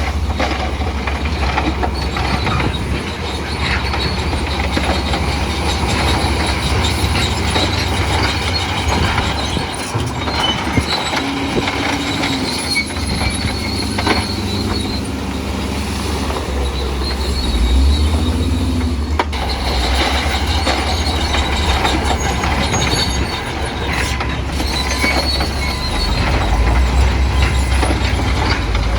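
Bulldozer at work: its diesel engine running with a steady low hum while the steel crawler tracks squeal.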